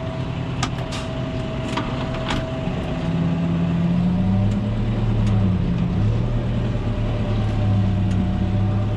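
Farm tractor engine running, its speed shifting up and down several times, with a few sharp knocks in the first couple of seconds.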